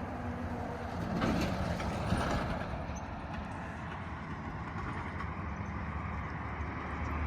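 A truck driving by after sounding its horn: engine running steadily, with road noise.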